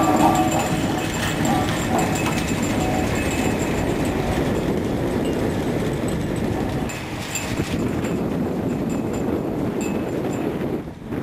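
Hydraulic hook haulers running on a fishing boat's deck as they haul in mackerel lines: a steady mechanical rattling clatter with many small clicks.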